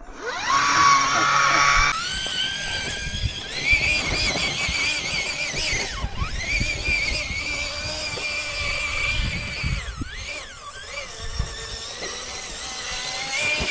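An RC rock crawler's electric motor and gearbox whining under throttle: a high whine that wavers as the truck crawls, falling away briefly twice and winding back up, with low knocks of the wheels on rock.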